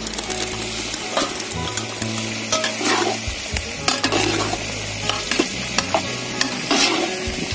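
Fried chicken pieces going into a large metal pot of boiling chicken gravy, then a long steel ladle stirring it, scraping and knocking against the pot every half second or so over the steady sizzle and bubbling of the boiling gravy.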